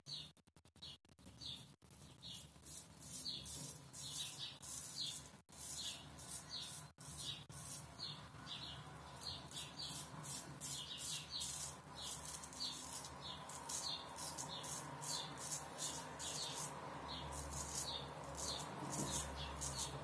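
Kamisori straight razor scraping stubble through shaving lather on the neck, in short quick strokes of about two or three a second, each a brief high rasp.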